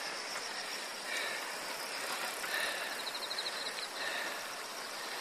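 Outdoor ambience: a steady hiss with faint short high chirps, and a brief rapid trill about three seconds in.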